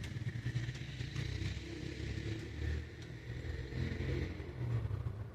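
Epson L3250 ink-tank printer running its print-head cleaning cycle: a low, uneven motor hum from the pump and carriage mechanism.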